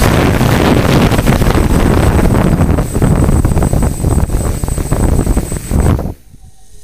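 DJI Flamewheel F550 hexacopter's motors and propellers spinning on the ground, heard from its own onboard camera as a loud rough rush of prop wash on the microphone with a thin steady high whine. The motors stop about six seconds in.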